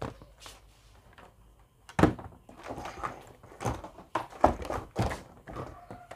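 Handling noise on a wooden workbench: a click at the start, then a run of about half a dozen dull knocks and thumps from about two seconds in.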